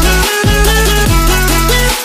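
Electronic dance music with a heavy bass line and repeated downward pitch sweeps. The bass drops out briefly twice, about a third of a second in and near the end.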